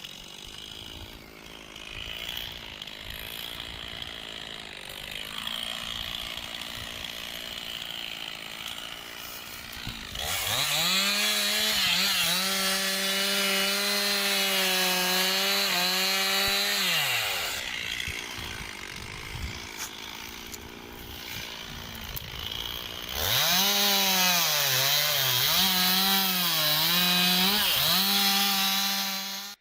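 Two-stroke chainsaw cutting timber during tree felling: it runs quietly, then goes to full throttle twice, for about seven seconds and then about six. In the second cut the pitch dips and recovers several times.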